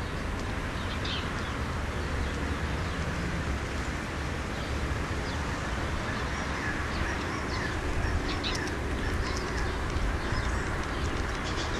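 Steller's jays foraging close by: short, sharp high sounds come and go, most of them between about eight and eleven seconds in, over a steady low rumble.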